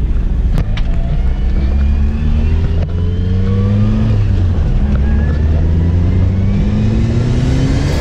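Turbocharged Toyota AE86 four-cylinder engine pulling hard through the gears, heard from inside the cabin: the engine note climbs steadily, drops at a gear change about halfway through, then climbs again and drops at another shift near the end.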